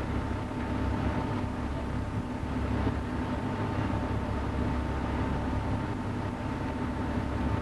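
Steady low rumble of a car ferry's engines under way, with a faint steady whine above it.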